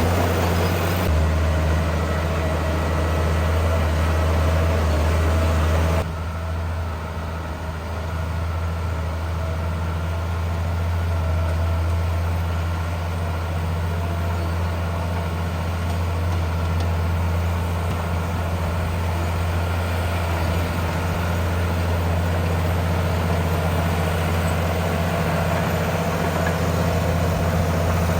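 Heavy diesel engine of earthmoving machinery running steadily with a deep hum, with sudden changes in tone about a second in and again about six seconds in.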